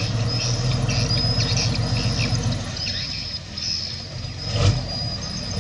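Komatsu crawler bulldozer's diesel engine running under a steady low hum while its steel tracks squeal in short, repeated high squeaks, several a second. One sharp thump comes a little before the end.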